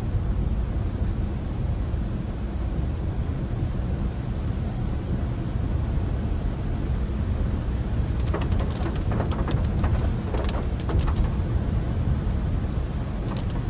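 In-cabin rumble of a Honda Brio's engine and tyres climbing a steep hill, the engine labouring in third gear, which cannot hold the climb. A scatter of clicks and taps comes about two-thirds of the way in and again near the end.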